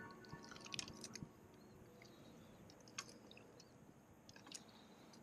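Near silence with a few faint scattered clicks and ticks of hands, hook and tackle as a hooked trout is being unhooked, the clearest about a second in and again about three seconds in.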